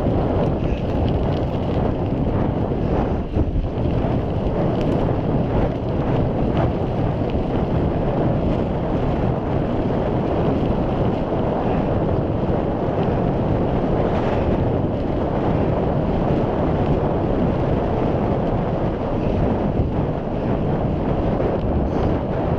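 Wind buffeting a GoPro's microphone while riding a mountain bike along a tarmac road: a steady low rushing noise, mixed with the tyres rolling over the road surface and a few faint rattles.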